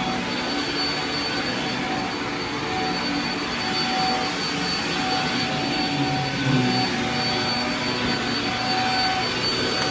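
Shark MultiFlex vacuum cleaner running steadily, a rushing hiss with a steady high whine.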